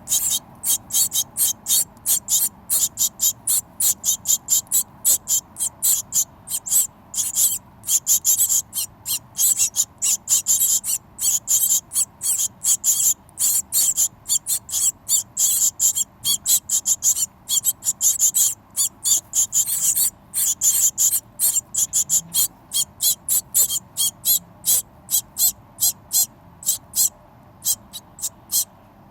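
Hungry birds cheeping, a steady stream of short, high-pitched calls about three or four a second without a break, the insistent calling of birds wanting food.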